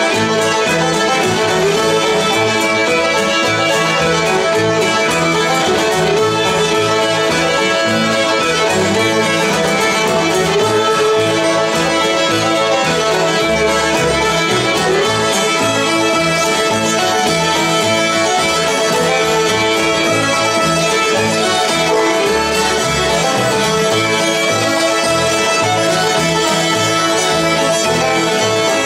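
Acoustic string band playing a tune: two fiddles carry the melody over banjo, acoustic guitar and a plucked upright bass.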